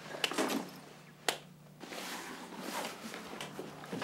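A fabric bag being handled, with faint rustling and a few small clicks, one sharp click about a second in.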